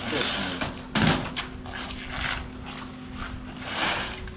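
Plastic fish crates being handled on a concrete floor: one sharp knock about a second in, with scraping and shuffling around it. A steady low hum runs underneath.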